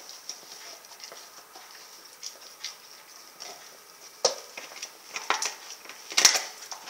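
Rottweiler gnawing at a frozen whole raw turkey: a run of soft licking and teeth-scraping clicks. Sharper crunches and cracks come from about four seconds in, and the loudest come near the end.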